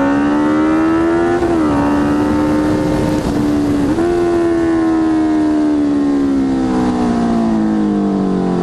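Honda CB650F's inline-four engine running through a Jeskap GP2 R full aftermarket exhaust while riding. The engine note breaks sharply at gear changes about a second and a half and four seconds in, then falls slowly over the last few seconds as the bike slows.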